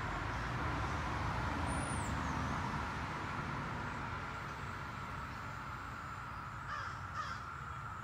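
Outdoor background sound: a steady even hiss over a low rumble, with a brief high chirp about two seconds in and two short animal calls near the end.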